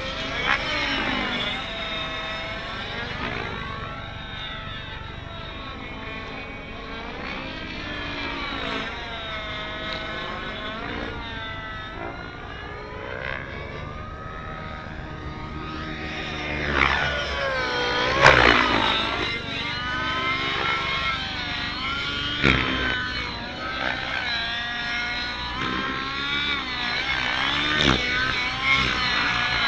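Nitro RC helicopter engine and rotors whining in flight, the pitch continually swooping up and down as the helicopter manoeuvres, with a few sudden louder moments in the second half.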